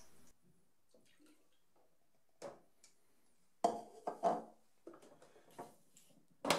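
Liquid pouring into a plastic film developing tank stops just after the start; then scattered plastic clicks and knocks as the measuring jug is set down and the cap is pressed onto the tank, the loudest cluster a little over halfway through.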